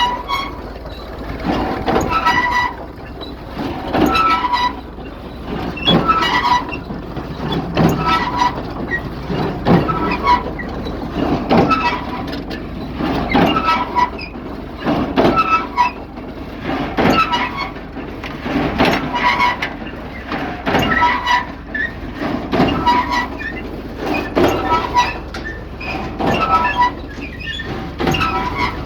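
Case 200 baler running, its mechanism clanking and rattling in a steady rhythm about once every two seconds over a continuous low drone.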